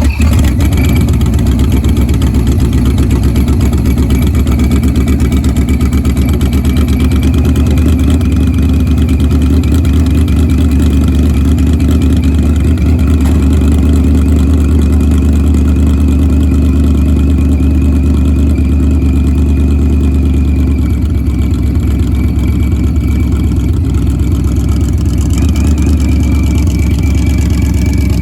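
Procharged 5.0L Coyote V8 idling steadily after being started, the starter now shimmed so it no longer hangs up, with a thin steady high whine over the engine note.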